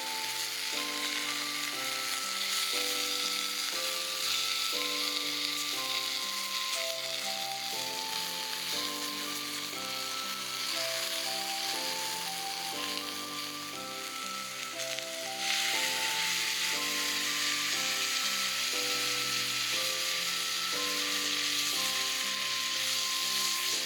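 Liver and heart frying over a campfire with a steady sizzle, which gets louder a little past halfway. Background music with a simple stepped melody plays along.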